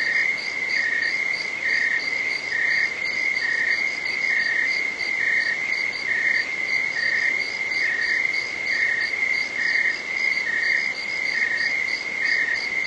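iOS 15 'Night' background sound: a recorded chorus of crickets and other insects trilling steadily at night. A high trill holds throughout, with a chirp repeating a little under once a second and a faster pulsing above it.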